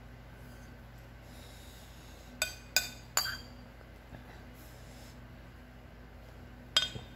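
Metal spoon clinking against a ceramic soup bowl: three quick clinks a little over two seconds in and one more near the end, each with a short high ring.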